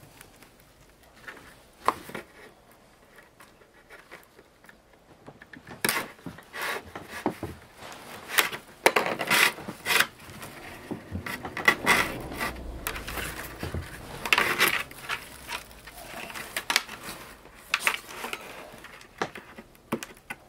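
Dry stalks and woven split-bamboo rustling and scraping as the rim of a hand-woven winnowing basket is bound. At first there are only a few faint clicks; from about six seconds in come repeated bursts of rubbing and rasping as the binding strip is pulled through.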